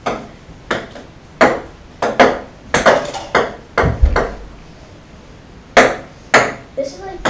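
Ping-pong ball bouncing on a wooden table, a run of sharp, ringing pings at uneven intervals that pause briefly past the middle and then resume. A low thump comes about four seconds in.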